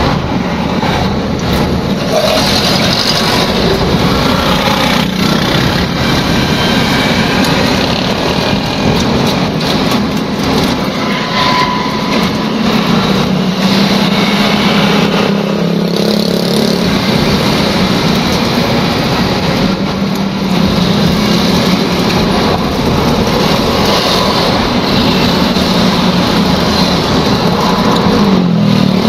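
Car driving along a street, heard from inside the cabin: steady engine and road noise with surrounding traffic.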